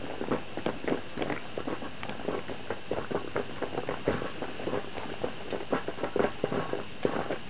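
Metal coffee percolator perking: a busy run of irregular bubbling pops and gurgles as boiling water spurts up the stem into the glass knob.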